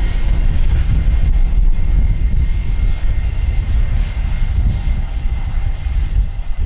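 Departing jet airliner's engines running at takeoff power, heard as a loud, low rumble with a faint steady high whine, easing slightly near the end.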